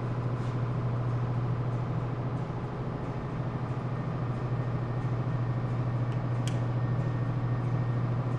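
Steady low mechanical hum of background machinery, unchanging throughout, with a single short click about six and a half seconds in.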